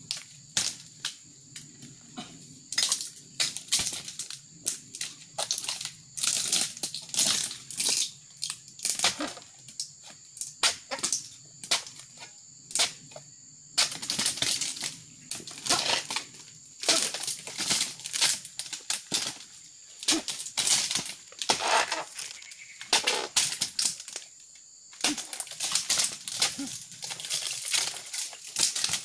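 Irregular chopping strikes of a long-handled pruning blade cutting into oil palm frond bases, with the dry fronds crunching and rustling as they are cut and pulled loose.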